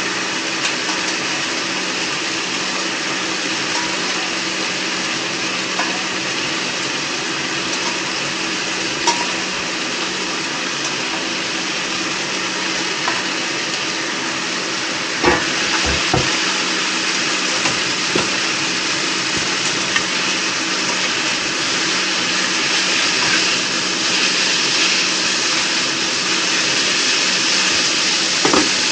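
Spaghetti sizzling steadily in a frying pan on a gas hob while being tossed with metal tongs, which click against the pan a few times.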